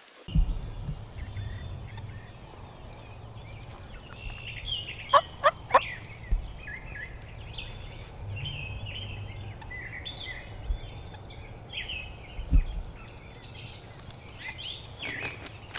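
Wild turkey calling, a loud burst of three short sharp notes about five seconds in, against songbirds chirping at dawn.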